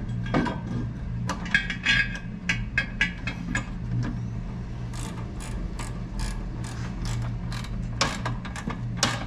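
Runs of quick, uneven metallic clicks, like a hand ratchet being worked, over a steady low electrical hum.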